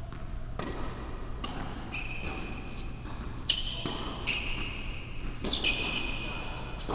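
Tennis ball bouncing and being struck on an indoor hard court, a few sharp knocks, the loudest about halfway through, with repeated high-pitched squeaks of sneakers on the court surface.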